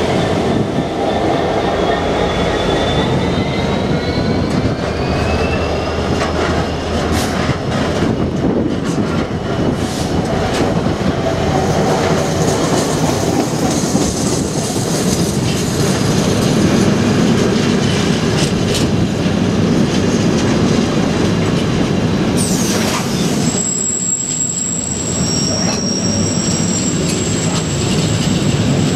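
Container freight train passing close at speed: a steady rumble and clatter of wagon wheels on the rails. High squealing wheel tones run over it, one rising in pitch over the first several seconds and a thin steady squeal in the last few seconds.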